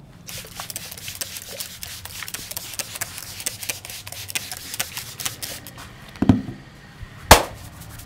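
Rapid, irregular clicking and crackling from two hollow round shells worked close to the ears in an ASMR head massage, followed by two louder smacks near the end, the second the sharpest and loudest.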